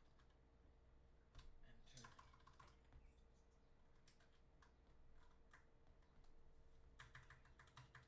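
Typing on a mechanical keyboard: faint, irregular keystroke clicks, with a quick run of keystrokes near the end.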